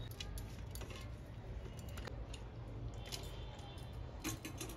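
Faint scattered clicks and scrapes of a hand mixing rice with spice powder on a steel plate, over a low steady hum.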